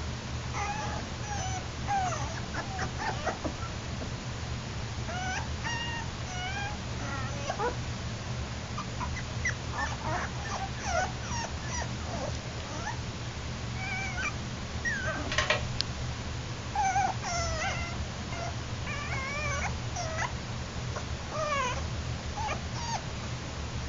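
Yorkshire terrier puppies making many short, high-pitched cries throughout, some rising and falling in pitch, over a steady low hum.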